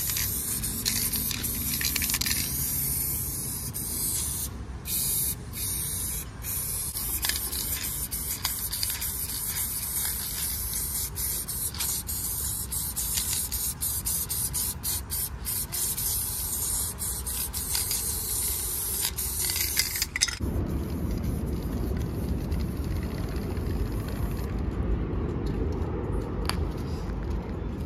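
Aerosol spray-paint can hissing in long sprays with many short breaks as paint is laid on a wall. The spraying stops suddenly about two-thirds of the way through, leaving a low steady background noise.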